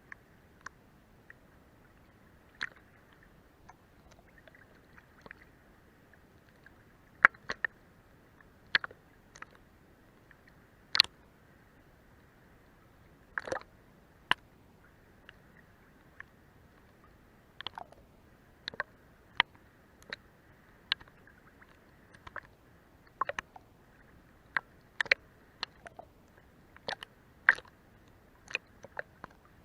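Seawater lapping under and against a boat's hull: irregular small slaps and plops, some coming in quick pairs, over a faint steady wash of water.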